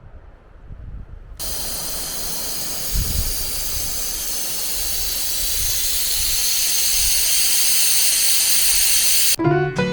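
A loud, steady hiss that starts suddenly about a second and a half in, after a faint low rumble, and grows slightly louder. Guitar and piano music cuts in near the end.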